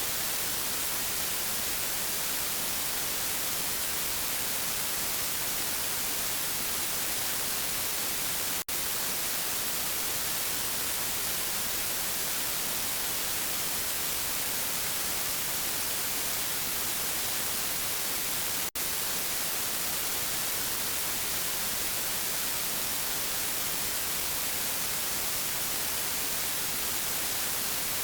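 Steady hiss of static, like white noise, cutting out for an instant twice, about ten seconds apart.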